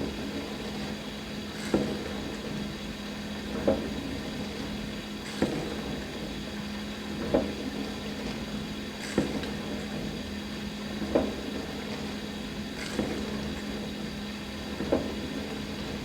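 Dishwasher running a wash cycle: a steady pump hum under the constant sound of spraying water, with a louder swish about every two seconds.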